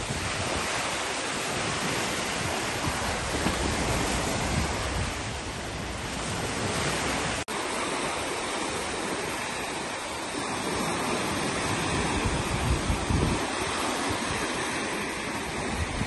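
Small wind-driven waves washing onto a sandy beach in a steady rush, with wind buffeting the microphone in low gusts. The sound drops out for an instant about halfway through.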